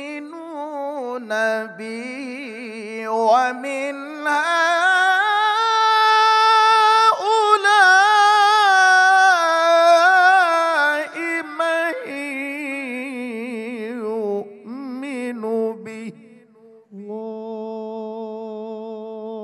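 A male qari reciting the Qur'an in the melodic tilawah style through a microphone. Long melismatic phrases with heavy vibrato climb to high held notes about halfway through, then descend, ending on a long steady low note.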